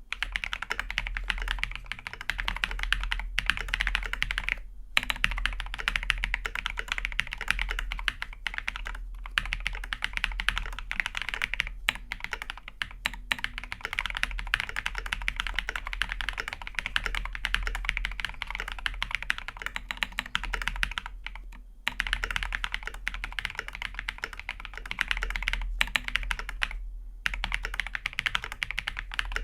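Idobao ID80 Crystal mechanical keyboard with lubed Durock POM switches, a polycarbonate plate and PE foam mod, under AKKO ASA-profile keycaps, typed on quickly in long continuous runs of keystrokes broken by a few short pauses.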